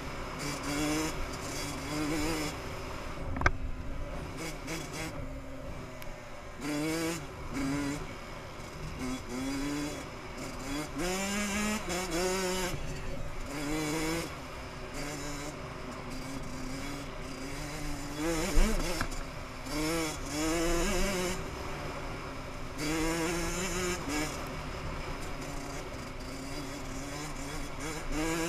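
Dirt bike engine revving up and dropping back again and again as the rider accelerates and shifts, with wind buffeting the microphone. Two sharp knocks stand out, one a few seconds in and one past the middle.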